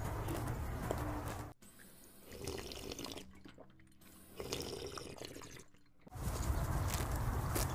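A person drinking water from a bottle, with a few gulps and swallows. A steady low hum drops out about a second and a half in and comes back near the end.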